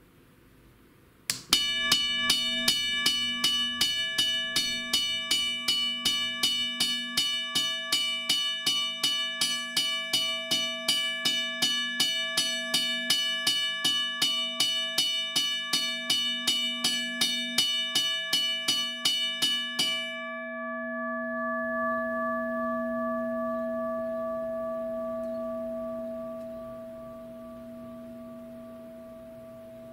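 Electromechanical railroad crossing bell, Model 333 type, powered up: its solenoid striker hammers the gong in a rapid, steady ring for about twenty seconds, then cuts out. The gong keeps ringing with a low hum and a higher tone that slowly fade.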